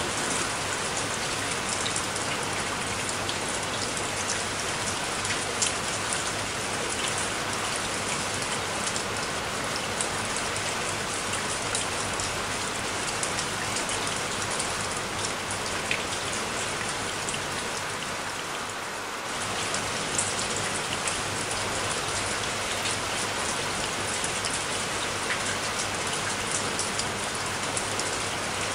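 Steady rain falling, an even hiss of many small drops.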